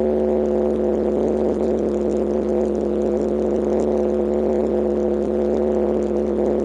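Kawasaki KLX125's 125 cc single-cylinder four-stroke engine running at steady revs while the bike is ridden on a gravel road, its pitch holding level throughout.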